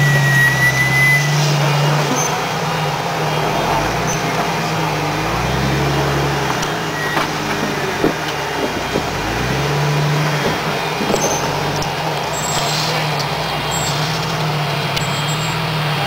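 Jeep Wrangler engine crawling over boulders, revving up and falling back in slow surges every few seconds as the driver works the throttle. A single sharp knock about eight seconds in.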